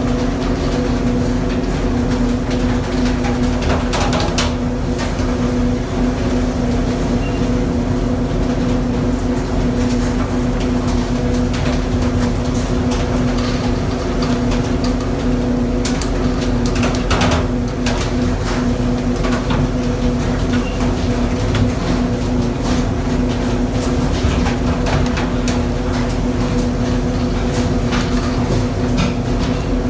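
A pole-and-line tuna fishing boat's engines and machinery run with a steady, loud low drone, alongside sea and wind noise. There are a couple of brief clatters, about four seconds in and again midway.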